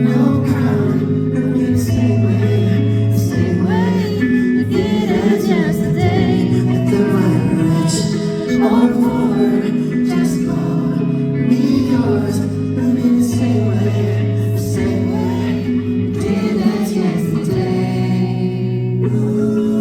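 Live song performance: a band plays under sustained singing voices.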